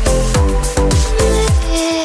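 Electronic music with a steady beat: deep kicks that drop in pitch, crisp hi-hat ticks and held synth notes, the bass cutting out for a moment near the end.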